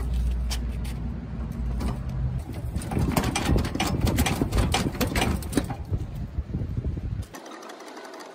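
A machine running with a steady low hum, with a stretch of fast rattling and clatter in the middle; the hum cuts off suddenly about a second before the end.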